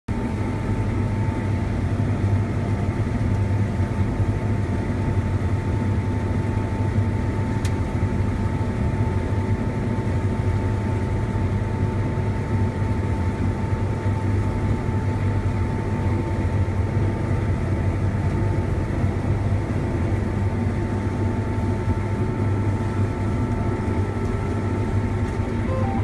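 Combine harvester running steadily while cutting a pea crop, heard from inside the cab: an even low drone with a thin steady tone above it.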